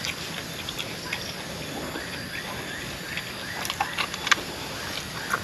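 A person chewing grilled pork rib, with short wet mouth clicks and smacks scattered through, a cluster of them about four seconds in, over a steady background hiss.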